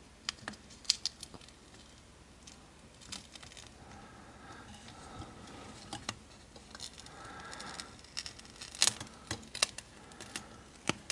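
Scattered small clicks and crackles of fingers handling a circuit board, prying up and peeling a thin adhesive cover off a chip, with a cluster of sharper clicks near the end.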